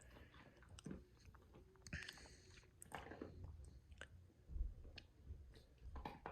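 A dog chewing and crunching dry kibble in faint, irregular crunches.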